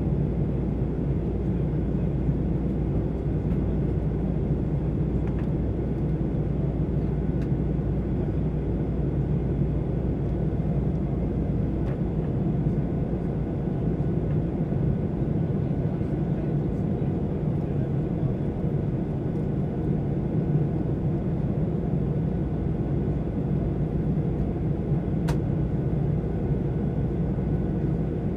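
Steady in-flight cabin noise of a Boeing 737-800, heard from a window seat over the wing: a deep, even roar from its CFM56-7B engines and the airflow, with a faint steady whine above it. A single light click about 25 seconds in.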